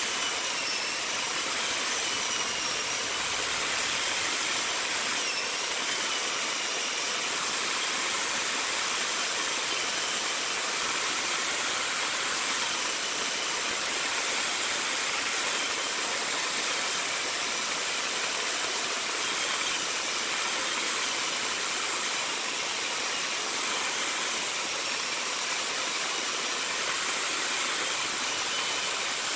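A woodworking power tool running steadily with a hissing, rushing noise and a faint wavering whine over it.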